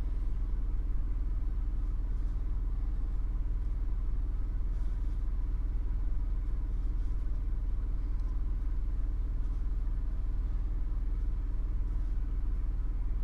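A steady low hum with even overtones, unchanging throughout, with a few faint light clicks over it.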